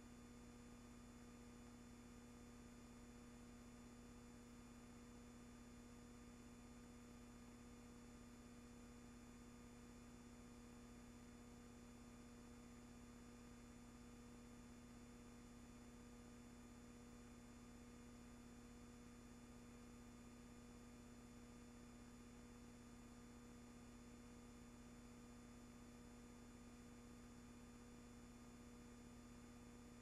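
Near silence: a faint steady hum and hiss with no other sound.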